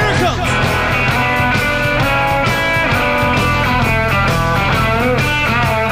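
A rock band playing live: an electric guitar lead full of string bends over a steady drum beat, without vocals.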